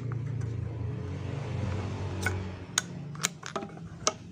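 A few sharp metallic clicks and taps from hand tools and parts being handled while a fuel pump is fitted to a scooter, over a low steady hum that fades near the end.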